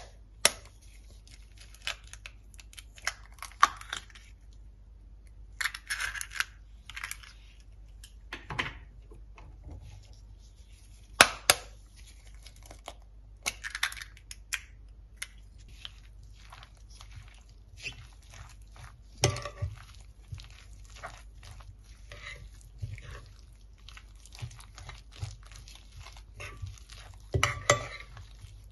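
Eggs cracked with sharp taps and broken over chopped herbs in a ceramic baking dish, the shells crackling. Then a metal spoon stirs the eggs into the wet herb mixture, scraping and clinking against the dish.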